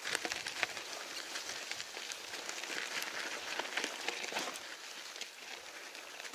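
Folding bicycle's tyres rolling over a loose gravel dirt road: a steady, dense crackle of small stones crunching and ticking under the wheels.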